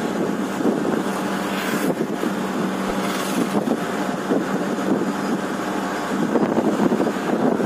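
Steady rushing wind and road noise of a moving vehicle, heard from beside its side window.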